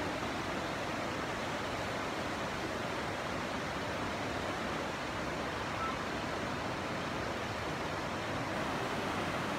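Fast-flowing muddy floodwater rushing past, a steady unbroken noise.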